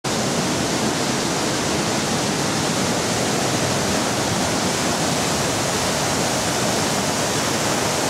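Rushing white water of a rocky river's rapids and small cascades: a steady, even noise.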